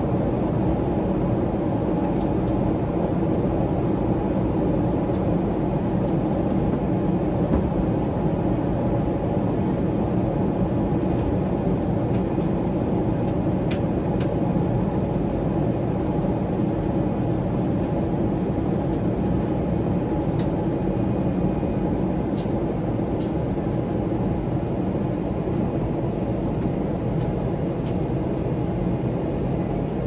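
Steady roar inside a Boeing 777-300ER airliner cabin in flight, from engine noise and airflow over the fuselage, low and unchanging. A few faint clicks sound through it.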